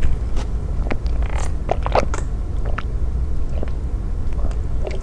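Swallowing gulps of fresh-squeezed orange juice drunk from a plastic cup, picked up close on a lapel mic: a scatter of small wet clicks and mouth noises over a steady low hum.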